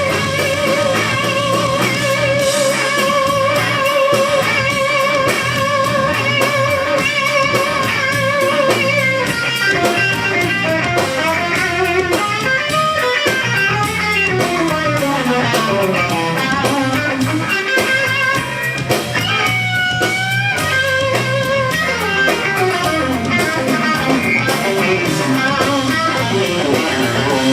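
Electric blues lead guitar over bass and drums. A long held note with wide vibrato lasts about the first nine seconds, then gives way to bending runs that slide up and down.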